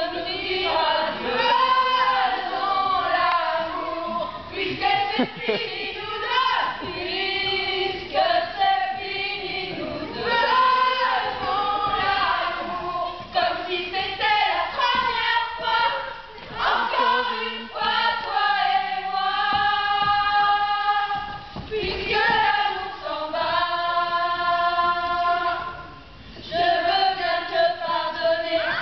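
A group of women singing together in chorus, in phrases of held notes with short breaks between them.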